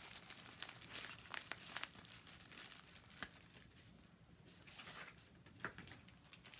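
Faint rustling and crinkling of a yellow padded paper mailer and a small plastic bag being handled, with scattered light crackles and a few sharper ones.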